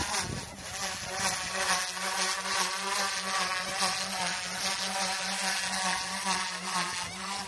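Goosky S2 micro RC helicopter's electric motor and rotors, a steady buzzing whine whose pitch wavers up and down as it is flown through manoeuvres close to the ground.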